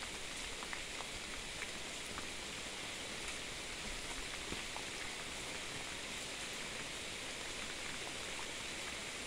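Steady thunderstorm rain falling, a constant hiss with scattered drops ticking close by.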